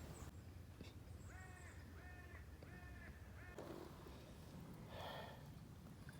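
A crow cawing four times in quick succession, faint and distant-sounding, with a soft rustle after.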